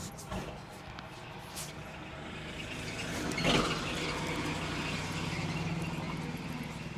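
Street traffic: a motor vehicle's engine running close by and growing louder, with a short louder rush of noise about three and a half seconds in.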